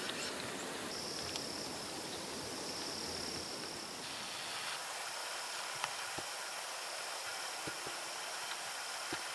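A high, steady insect buzz that starts about a second in and holds, over an even background hiss, with a few faint clicks.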